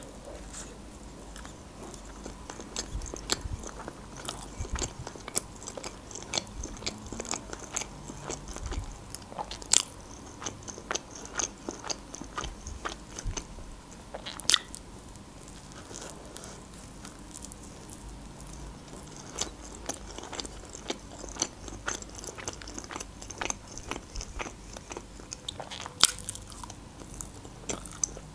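Close-up eating of a soft filled flatbread roll: bites and chewing with many short wet clicks, a few louder clicks standing out now and then.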